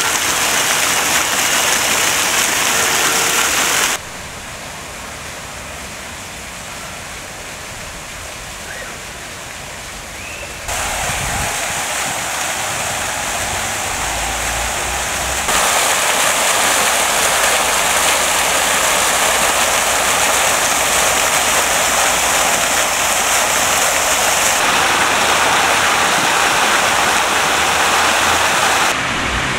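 Fountain jets splashing into a stone basin, a steady rushing spray of falling water. It changes level at several points as one fountain gives way to another, and is quieter for several seconds from about four seconds in.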